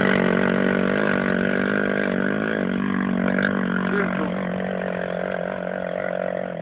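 ATV (quad bike) engine running at a steady pitch, dipping slightly about two and a half seconds in and gradually getting a little quieter.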